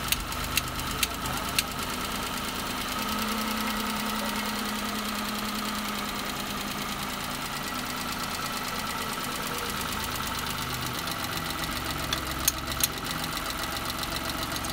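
Maruti Suzuki 800's three-cylinder petrol engine idling while its distributor is turned to set the ignition timing; the idle tone shifts a couple of times as the timing moves, settling to a smooth idle. A few sharp clicks come near the start and again about twelve seconds in.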